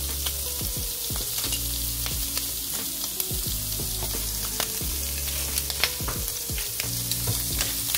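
Food frying on the stove: shrimp searing in one pan and a tomato sauce simmering with fresh cream in another. The sound is a steady sizzle dotted with many small crackles and pops.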